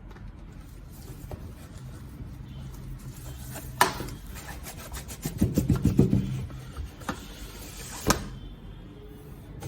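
Graphics card packaging being handled and rubbed during an unboxing: sliding and scraping with a sharp click about four seconds in, a quick run of rattling clicks a little past halfway, and another sharp click near the end.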